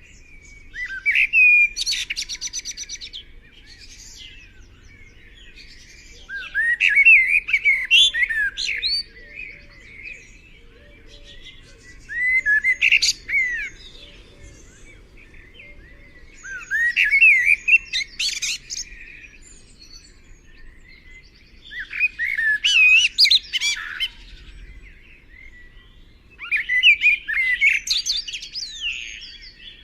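A songbird singing: six phrases of quick, varied, rising and falling whistled notes, each lasting two to three seconds and repeated about every five seconds.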